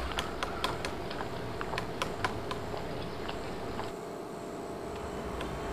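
A quick, regular series of sharp taps, about four or five a second, fading in the second half, over a steady background hiss.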